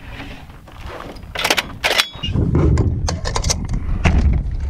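Sharp clicks and knocks of a .50 BMG rifle being handled at the shooting bench, then a heavy, uneven low rumble of wind buffeting the microphone, with more knocks mixed in.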